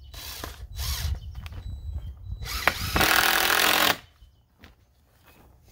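Cordless drill driving screws through a wooden strip into the cold frame: a few short bursts of the motor, then one longer, louder run of about a second that stops about four seconds in.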